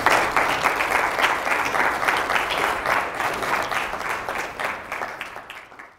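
Audience applauding, a dense patter of many hands clapping that slowly weakens and fades out near the end.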